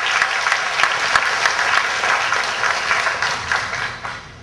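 Audience applauding in a school auditorium, many hands clapping at once; the applause dies away near the end.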